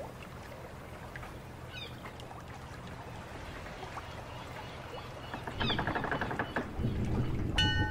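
Ambient soundscape of a waterside town: a steady low rumble with trickling water, two short bird chirps, a creaking wooden clatter about six seconds in, and a sudden metallic ring, like a struck bell, near the end.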